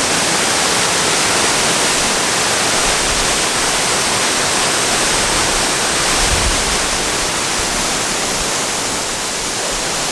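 Waterfall rushing steadily, swollen after heavy rain.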